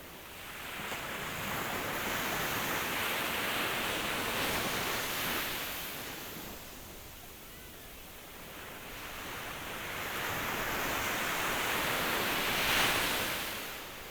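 Ocean surf: two waves wash in one after the other, each a hiss that swells over a few seconds and then fades away. The second is the louder and peaks near the end.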